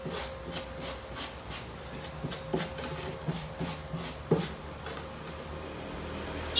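A welded steel plate being cleaned with hand tools: a run of short scraping strokes, about three a second at first and then irregular, with a few sharper knocks.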